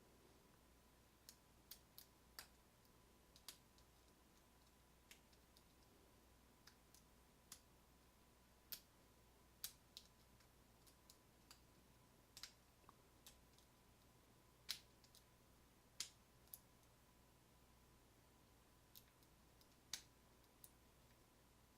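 Faint, irregular light clicks of a lock pick working the pins of a Schlage deadbolt cylinder under tension while single-pin picking, about one click a second with a few louder ones.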